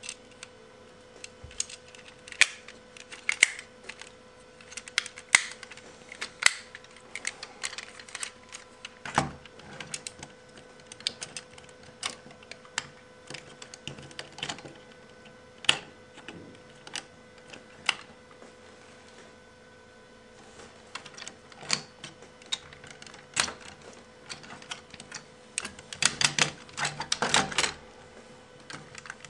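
Hard plastic parts of a G1 Sixshot Transformers figure clicking and snapping as they are rotated and locked into place by hand. The clicks come irregularly, with a quick flurry of them near the end.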